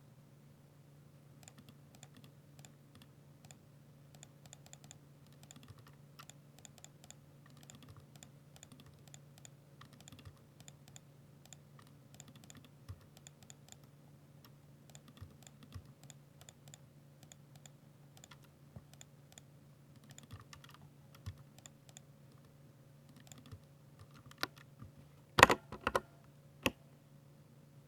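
Continuous, fairly quiet typing on a Ducky 60% mechanical keyboard with silver switches, a steady stream of light key clicks. A few much louder key strikes come near the end.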